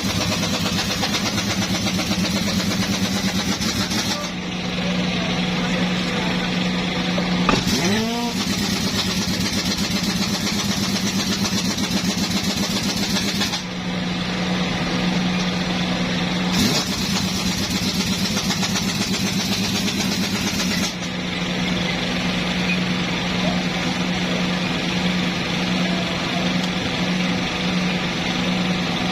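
An engine running steadily, with a short rising whine about eight seconds in.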